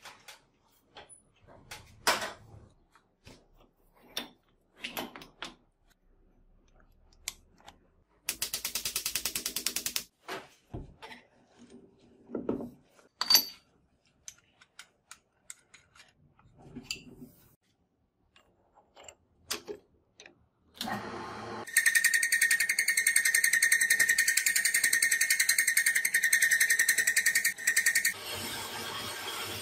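Workshop clicks and knocks as a steel block is clamped onto a combination lathe-mill, with a rapid ratcheting rattle about 8 seconds in. About 21 seconds in the machine starts running with a loud, steady high-pitched whine, which drops to a lower steady hum near the end.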